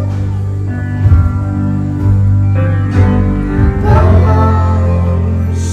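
Background music: a song with a singing voice over steady held bass notes.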